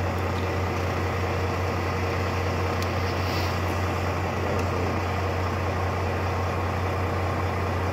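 Steady low drone of a Volvo VNL truck idling, heard inside the cab, with a faint tick or two about three seconds in as the wiring is handled.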